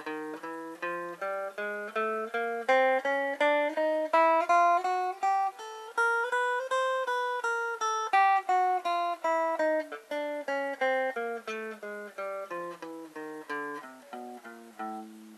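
Clean-toned Stratocaster-style electric guitar played one note at a time with alternate pick strokes, at about three even notes a second. The line climbs in pitch through the first half and comes back down in the second half.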